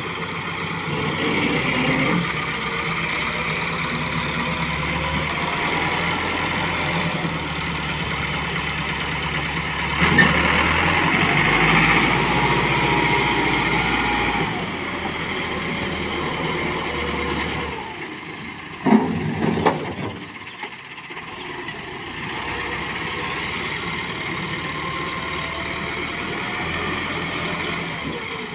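Massey Ferguson 385 tractor's four-cylinder diesel engine running while its hydraulics tip the brick-loaded trolley. The engine gets louder for a few seconds near the middle, and two sharp knocks come about two-thirds of the way through.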